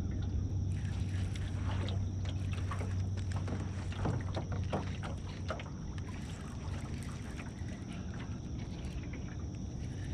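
Small fishing boat's motor running steadily with a low hum, with water slapping against the hull a few times in the middle.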